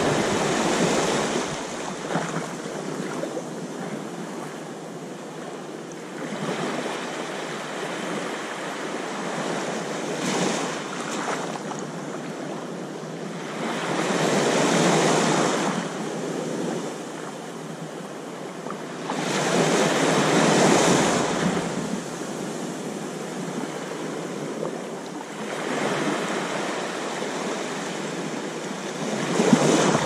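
Small waves lapping and washing up over a sandy beach at the water's edge. The rush of water swells and fades every few seconds, with the loudest washes about halfway through and again a few seconds later.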